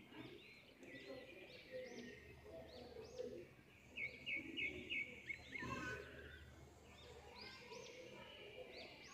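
Faint birds chirping again and again in short arched calls, with a quick run of about five short notes about four seconds in.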